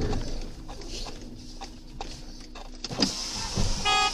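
Car cabin sound picked up by a dashcam while driving slowly: a low steady hum with scattered clicks, a knock about three seconds in, and a short pitched beep near the end.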